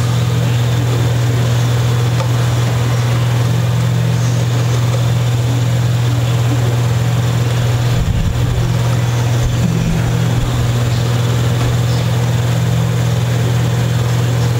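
A steady low hum, held at one pitch, wavering briefly about eight seconds in.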